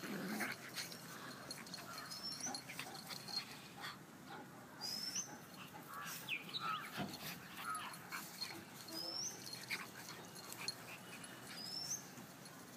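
Puppies play-wrestling, with faint scuffling and snuffling and a few short whines about halfway through.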